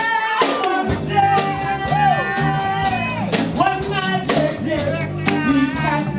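Live jazz band playing: steady cymbal strokes about twice a second over a bass line and chords, with a pitched melody line sliding between the sung phrases.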